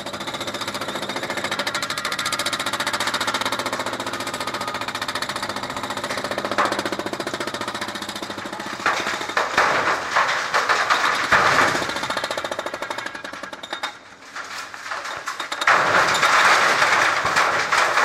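Remote-controlled hydraulic jackhammer pounding concrete in fast, continuous blows. It eases briefly about three-quarters of the way through, then comes back louder.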